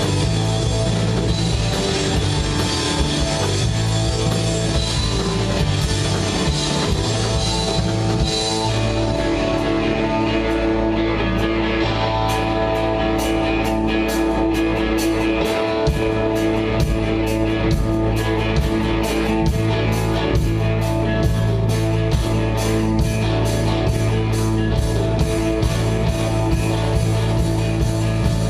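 Live rock band playing an instrumental passage on electric guitar and drum kit, loud and steady; a fast, even beat of sharp strokes comes in about twelve seconds in.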